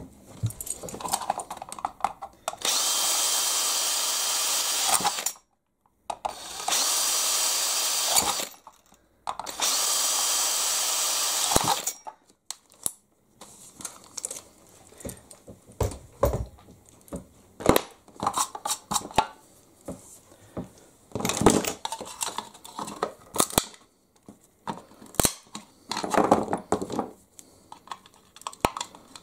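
Power drill boring three holes through a brittle plastic box, in three steady runs of two to three seconds each. After that, scattered clicks and short scrapes of plastic being worked with hand tools.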